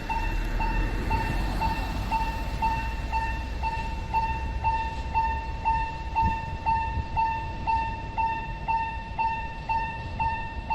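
Japanese railway level-crossing warning bell ringing, an electronic clang repeating evenly about twice a second, warning of an approaching train.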